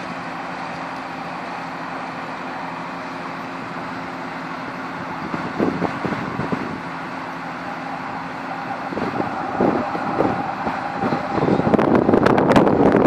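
A motor vehicle's engine running steadily. Wind gusts buffet the microphone twice, then heavily near the end.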